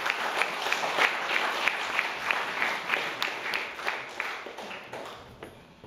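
A small audience applauding, many hands clapping, the clapping thinning out and dying away over the last second or two.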